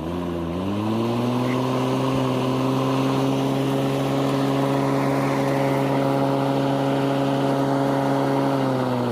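Lawn mower engine revved up, climbing quickly to a steady high speed and held there for about eight seconds, then dropping off sharply near the end.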